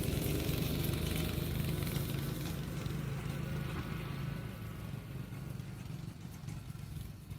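Small go-kart engine running steadily, growing gradually fainter over the last few seconds.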